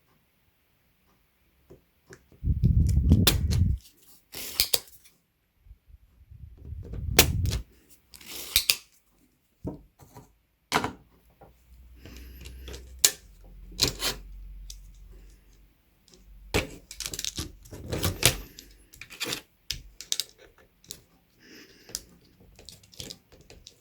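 Irregular clicks, taps and knocks of tools and parts being handled on a mechanical keyboard's circuit board while a key switch is desoldered, with a few short hissing bursts and low handling thumps.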